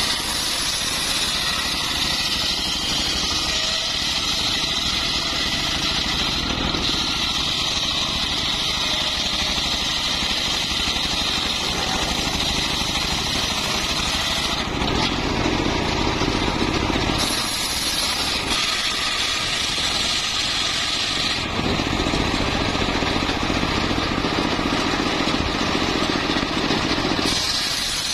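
Engine-driven homemade circular sawmill running steadily while sawing a mahogany log; its tone shifts a few times in the second half as the load on the blade changes.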